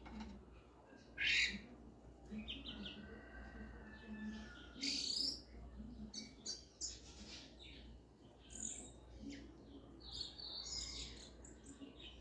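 Double-collared seedeater (coleiro) giving short, sharp high chirps: a loud one about a second in, another around five seconds, and a quick run of notes near the end, over a faint low hum.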